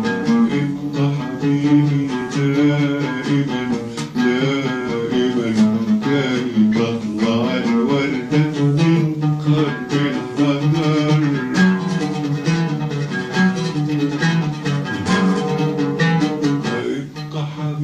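An oud plucked in a flowing melody, with quick repeated strokes on sustained notes.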